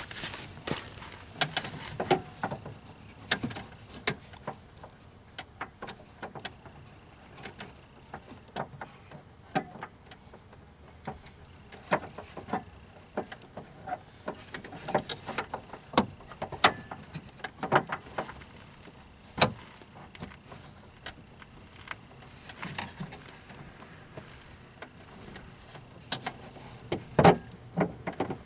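Irregular clicks, taps and knocks of metal and plastic parts being handled as a door lock cylinder is fitted onto a car's exterior door handle, with a louder cluster of knocks near the end.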